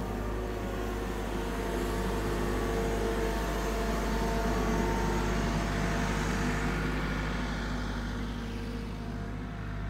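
Diesel engine of a CAT IT14G wheel loader running steadily at idle, with an even, unchanging pitch.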